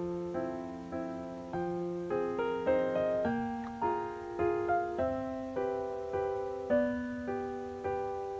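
Background piano music: a gentle melody of single notes and chords, a new one struck about every half second to second, each fading away.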